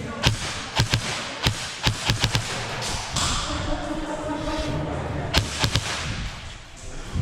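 Airsoft gunfire in a match: irregular sharp snaps and thuds of shots and BB hits, a quick cluster in the first couple of seconds and another a little past halfway.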